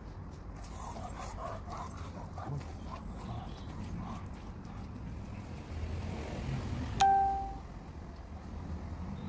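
A single sharp metallic clink about seven seconds in, ringing briefly with a clear tone, as the fishing magnet on its rope comes up out of the canal.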